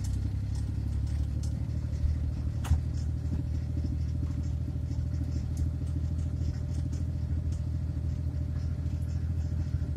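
Small vehicle's engine running steadily, heard from inside the cab as an even low rumble, with one sharp click about three seconds in.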